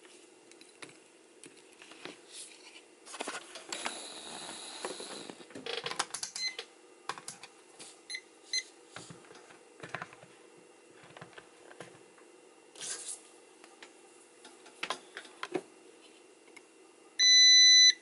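Scattered clicks and rustles of a small relay and multimeter test leads being handled, over a faint steady hum. Near the end a digital multimeter's continuity beeper sounds a loud, steady high beep: the probes are across the relay's contacts, and the beep shows they are welded shut.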